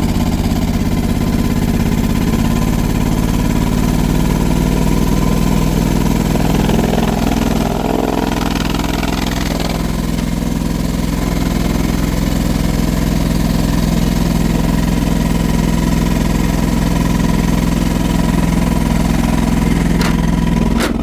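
John Deere 425 riding mower's Kawasaki V-twin engine running steadily at full throttle, now that the airlock in its fuel line has been cleared. Its pitch settles slightly higher about four seconds in, and there is a single sharp click near the end.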